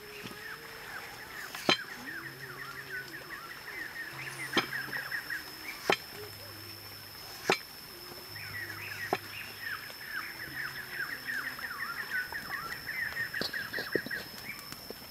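Large knife chopping potato on a wooden cutting board: five sharp chops one to three seconds apart, over birds chirping steadily and a constant high-pitched whine.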